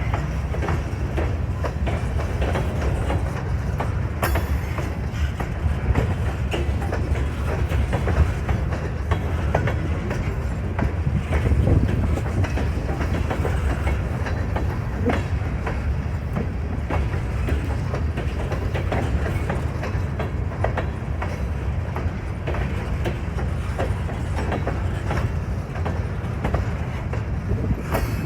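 Grain train's covered hopper cars rolling by, with a steady low rumble and a stream of sharp wheel clicks over the rail joints.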